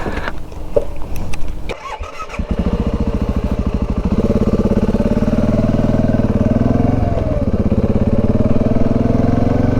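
Dual-sport motorcycle engine starting about two seconds in, after a few clicks and handling sounds. It runs with an even chug, then revs up briefly as the bike moves off.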